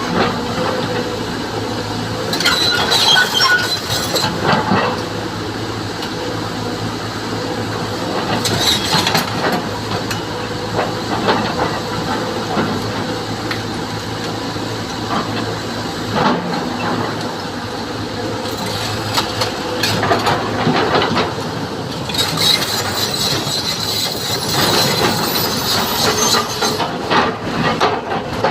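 Excavator's diesel engine running steadily under load. Several spells of clanking and grinding, steel on rock, rise over it a few times.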